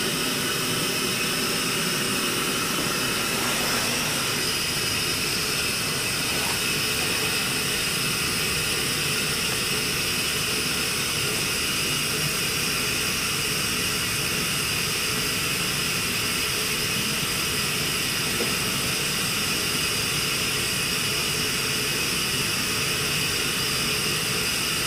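Steady, unbroken hiss of carbon dioxide gas flowing into a small-animal euthanasia chamber.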